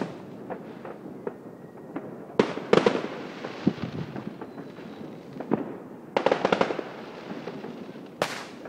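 Fireworks going off: a run of sharp bangs with bursts of crackling, the loudest clusters about a third of the way in and a little past halfway, another bang near the end, over a steady scatter of smaller distant pops.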